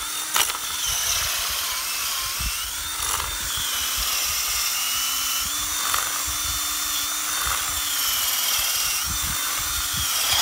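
Cordless drill running steadily with a 1-1/2-inch spade bit, boring down through lake ice; the motor's whine wavers slightly in pitch as the bit grinds into the ice.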